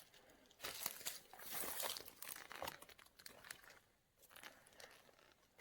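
Footsteps crunching through dry leaf litter, twigs and scrub, with irregular crackles and snaps. They are busiest in the first half and pause briefly about four seconds in.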